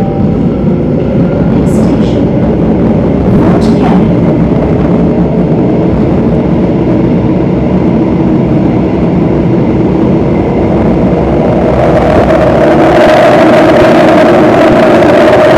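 Underground MRT train running through a tunnel, heard from inside the carriage by the doors: a steady loud rumble of wheels on rail, with a couple of short high squeaks about two and three and a half seconds in. About twelve seconds in it grows louder and brighter, and a steady whine comes in.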